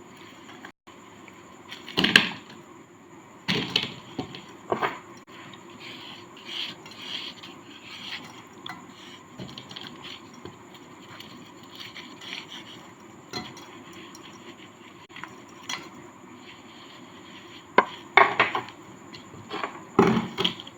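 Dry sand cake being scraped and broken apart: gritty scraping with scattered sharp crunches, the loudest about two seconds in, again around three and a half seconds, and a quick run of crunches near the end.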